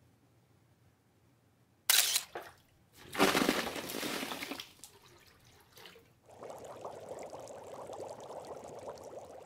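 Ice cubes and water tipped from a plastic tub into a stainless steel sink: a sudden clatter about two seconds in, then a longer splashing pour. A steadier rushing noise follows from about six seconds in.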